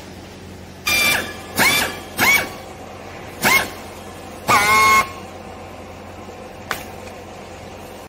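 Five short high-pitched squeaks in the first five seconds as a hand strapping tool tensions plastic strapping tight around a bale, then a single sharp click near the end.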